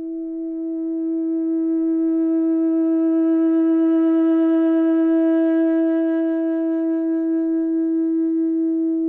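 Soundtrack music: one long held note at a steady pitch, like a wind instrument, swelling slightly louder and brighter in the middle.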